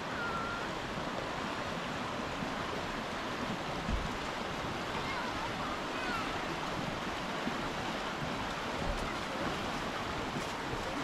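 The Azusa River rushing over its gravel bed and a small rapid: a steady, even rush of running water. A few faint short chirps sound over it, and a brief low thump comes about four seconds in.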